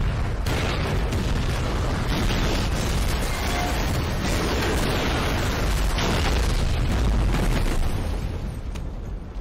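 Film sound effects of an explosion: a continuous roar with a deep rumble, broken by a few sharper impacts.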